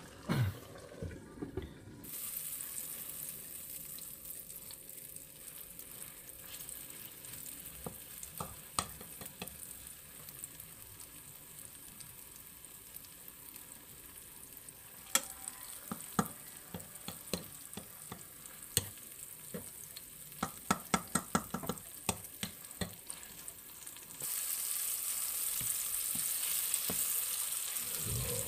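Eggplant omelette (tortang talong) frying in oil in a pan: a steady sizzle, with scattered clicks and taps of a utensil in the middle. The sizzle grows louder about four seconds before the end, as a wooden spatula works the egg and eggplant.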